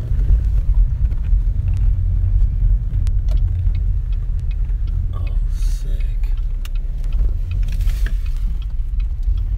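A car driving slowly on a wet gravel road, heard from inside the cabin: a steady low rumble from the engine and tyres, with scattered small ticks and pops from the gravel.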